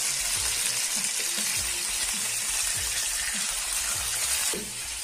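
Bone-in chicken thighs sizzling steadily in hot oil in a frying pan while being turned over with spatulas. The sizzle eases off a little near the end.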